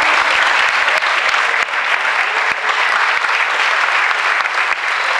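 Audience applauding steadily, a dense even clapping from many people.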